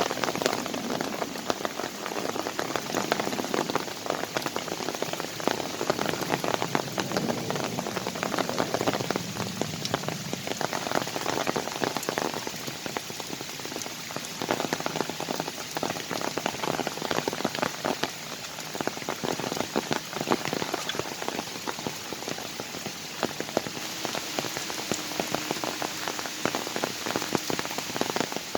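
Autumn rain falling in a forest: a steady, dense patter of many raindrops hitting surfaces.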